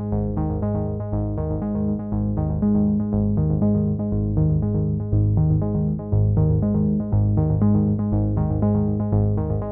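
Electronic background music: a synthesizer playing a fast run of repeated notes over a steady bass line.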